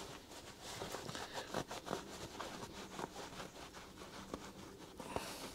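Cloth rag wiping across a plastic parts tray: faint rubbing and scuffing with scattered light knocks.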